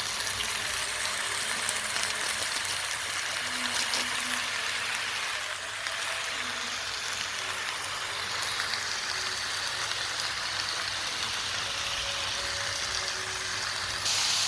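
Vegetable filling sizzling as it stir-fries in a pan: a steady hiss, with a few light clicks.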